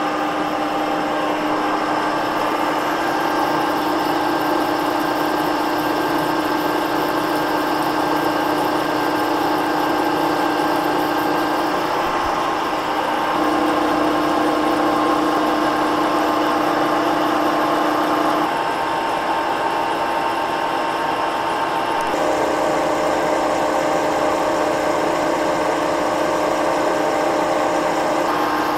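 Cincinnati 2ML horizontal milling machine running at about 295 RPM, its cutter feeding slowly through a keyway cut in a large steel shaft under flowing oil coolant. It makes a steady machine hum with several held tones, which shift slightly a few times.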